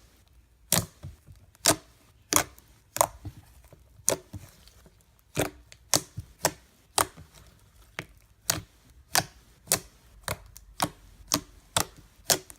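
Homemade slime with a little Model Magic clay mixed in, worked by hand and giving sharp wet pops and clicks about one or two a second, unevenly spaced.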